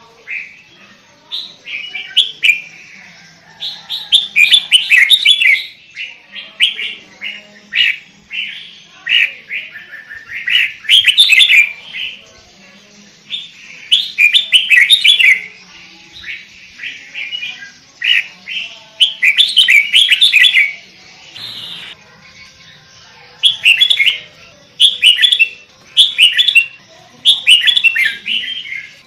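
Sooty-headed bulbul (kutilang) in full song: short phrases of quick warbled notes, each a second or two long, repeated over and over with brief pauses between.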